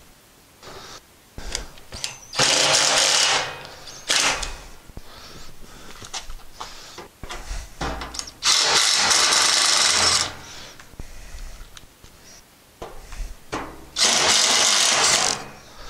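Cordless impact driver running in three bursts, each a second or more long and a few seconds apart, driving thread-rolling self-tapping screws into a grill's sheet-metal side panel. Small clicks and handling noises come between the bursts.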